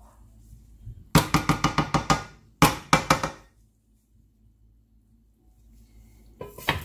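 Wooden spoon rapped against the rim of an aluminium pot, likely to knock off clinging rice: a quick run of about ten sharp knocks just after the start, then a shorter run of four or five a moment later.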